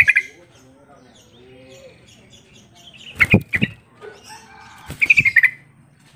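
Yellow-vented bulbul giving short, loud, bubbly chattering call phrases, about three seconds in and again about five seconds in, with a couple of sharp knocks near the middle and fainter chirps between.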